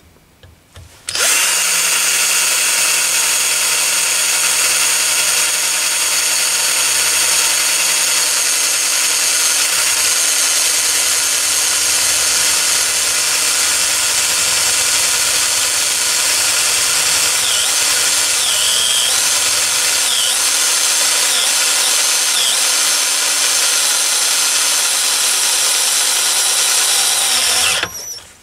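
Cordless drill running steadily as a Drillpro M8×1.25 combination drill-tap bores through and threads 3 mm aluminium angle. It starts about a second in and stops just before the end, and its motor note dips briefly several times in the second half as the bit takes load.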